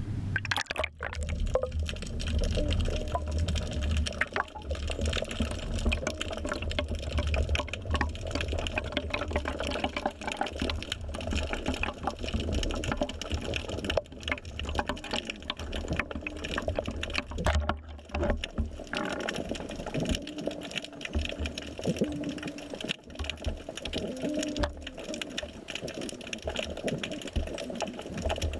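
Underwater sound picked up by a GoPro in its waterproof housing: muffled water noise with a dense, steady crackle of small clicks. A low rumble under it weakens about two-thirds of the way through.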